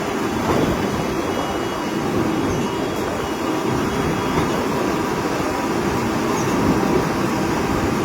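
Concrete pump running on a pour, a steady mechanical rumble.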